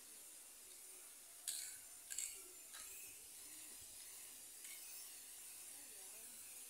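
Near quiet, with a few brief faint hisses between one and a half and three seconds in, and one more near the end.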